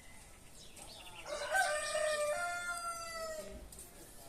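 A rooster crowing once: one long call of about two and a half seconds, starting about a second in.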